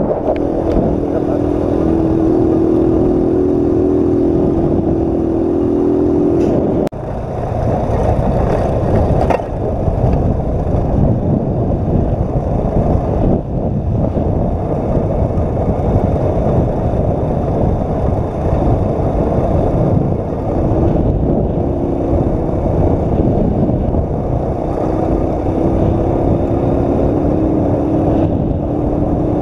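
Honda CG Titan 125's single-cylinder four-stroke engine running steadily while riding on a dirt road, with a steady engine note at first and a short dip about seven seconds in. After the dip, rushing ride noise covers the engine, and the engine note comes back faintly near the end.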